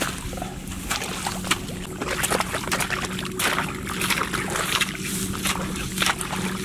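Metal hoe blade chopping and scraping through wet mud in shallow water, with repeated irregular strokes and water sloshing and trickling. A faint steady low hum runs underneath.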